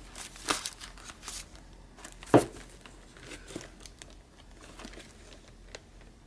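Sheets of sticker paper rustling and flapping as they are flipped through in a box, with a sharp tap about two and a half seconds in and a few faint clicks after.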